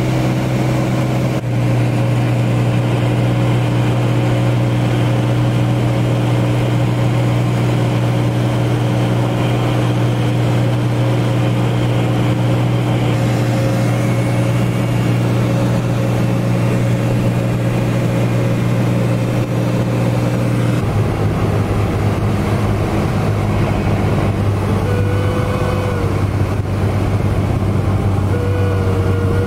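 Light aircraft's engine and propeller droning steadily, heard from inside the cabin: a loud, even low hum with overtones. About two-thirds of the way through, the hum steps down to a lower pitch and then holds steady again.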